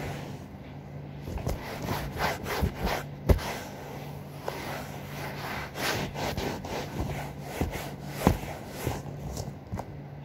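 Scrubbing a sofa's upholstery by hand with a cloth: a run of quick, irregular rubbing strokes, with two sharper, louder strokes, one about three seconds in and one near the end.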